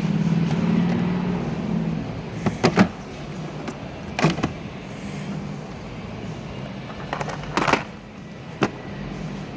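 Tools and gear being handled in a metal tool box drawer: a few sharp clicks and knocks, about two seconds in, around four seconds, and twice near the end, over a steady low hum.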